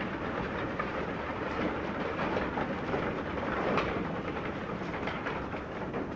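A herd of goats and sheep on the move: many hooves making an irregular patter of small clicks over a steady shuffling noise.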